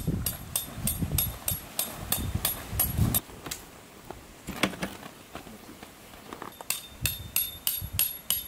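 A run of sharp knocks, about three to four a second, that stops for a few seconds in the middle and then starts again.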